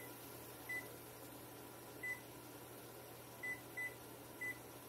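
Electronic beeps from a stainless gas range's keypad as its buttons are pressed to set a cooking timer. There are six short beeps, all at one high pitch and irregularly spaced, over a faint steady hum.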